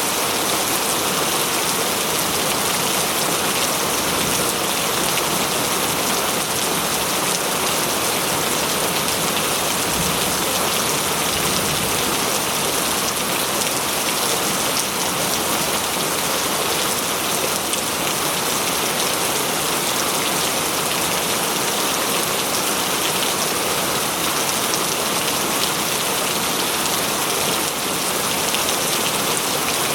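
Steady rain falling on foliage and ground, a constant even hiss of many drops.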